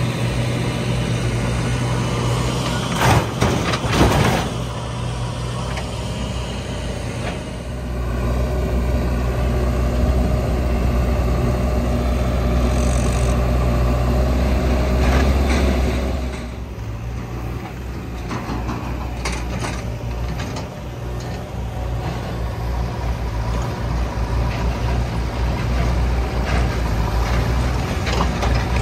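JCB 3DX backhoe loader's diesel engine running steadily as the machine digs and loads mud, with a few loud sharp noises around three to four seconds in. The engine note gets deeper and louder from about eight seconds in, then drops back at about sixteen seconds.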